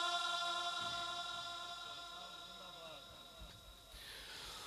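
A male reciter's long held note of Quran recitation (tilawat) dying away over about three seconds, trailing a long echo from the sound system.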